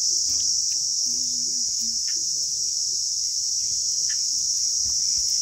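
Steady, unbroken high chirring of a cricket chorus.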